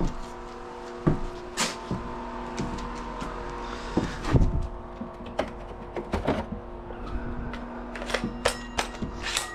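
Electric drill running a hole saw: a steady motor hum with irregular sharp knocks and clatters as the saw bites and catches, the loudest about four seconds in and several more near the end. The hole saw is what seems to be a very dull one.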